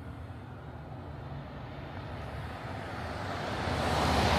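2024 Ford F350 Super Duty pickup driving toward the listener, its engine and tyre noise growing steadily louder as it approaches.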